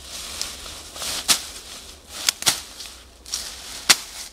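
A hand sickle slashing through tall weeds and brush: four sharp swishing cuts, two of them close together, with rustling of the vegetation in between.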